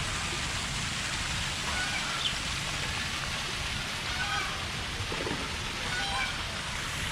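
Steady hiss of falling water, like rain or a waterfall, with a few faint high chirps of birds scattered through it.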